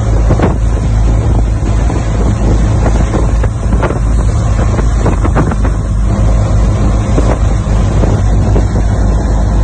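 Motorboat running under way at speed, its engine and rushing wake under heavy wind buffeting on the microphone.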